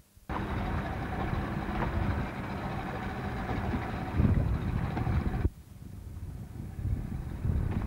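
Motorboat engine running steadily under way, mixed with wind on the microphone. The sound starts abruptly just after the beginning and cuts off sharply about five and a half seconds in, leaving a softer low rumble.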